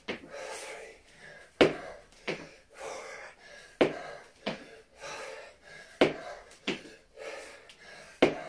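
A man breathing hard and exhaling forcefully in time with kettlebell reps. Pairs of sharp knocks come about every two seconds.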